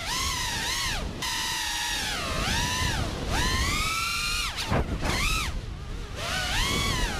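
Cinewhoop FPV drone's four brushless motors and ducted propellers whining, the pitch swooping up and down several times, with brief dips as the throttle is chopped and punched again.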